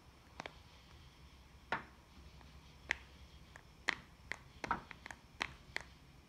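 About a dozen irregular clicks and taps as the buttons of a salt-water-soaked Fisher-Price talking puppy toy are pressed by hand; the toy gives no voice or music in reply, its electronics dead.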